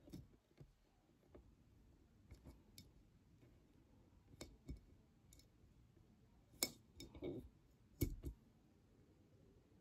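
Faint, scattered clicks and taps from a perfume bottle and its packaging being handled, a dozen or so small knocks spread irregularly, the loudest a little past the middle.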